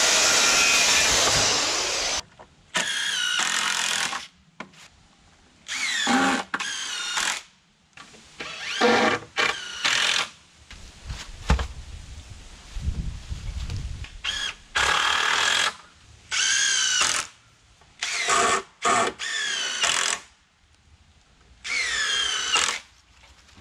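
A power saw cut ends about two seconds in. Then a power drill runs in about ten short bursts of a second or so each, its whine dipping and rising with the load, as it drives screws into the framing lumber.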